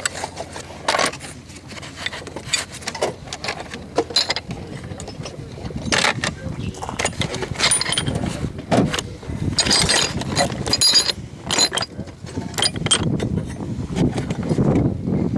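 Loose steel lathe tooling (drill chucks, lathe centres, change gears) clinking and rattling as it is picked up and shifted around in a cardboard box, in irregular clinks. A few metal pieces ring briefly when struck, about ten seconds in.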